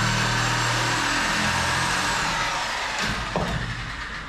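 Electric power saw running while cutting into the old wooden stringer and bearing block of a fibreglass boat hull, then winding down about halfway through as the trigger is released. A sharp knock about 3 seconds in.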